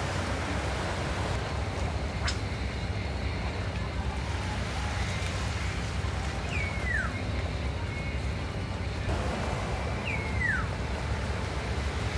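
Steady low rumble of waves and wind on the shore. A bird gives two short down-slurred whistles about three and a half seconds apart, and there is one sharp click about two seconds in.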